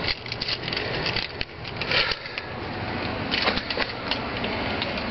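A house door being shut and locked: a run of sharp clicks, knocks and rattles, loudest about two seconds in and again at about three and a half seconds.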